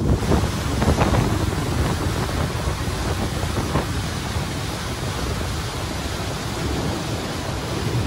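Wind buffeting the microphone and water rushing along the hull of a boat under way: a steady, rough noise, heaviest in the low end.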